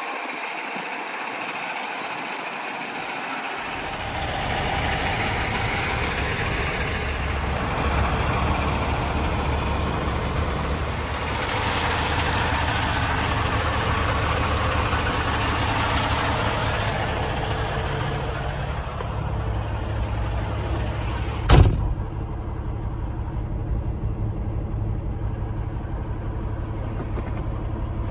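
Diesel truck engine, a Cummins X15 in a Peterbilt 389, idling steadily; its low hum sets in a few seconds in. There is one sharp knock past the middle, after which the sound is more muffled.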